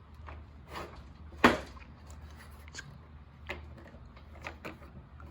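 Manual adjustment of a Kobalt 10-inch table saw's blade-tilt mechanism as the blade is returned toward 0 degrees bevel: one sharp knock about a second and a half in, then a few lighter clicks.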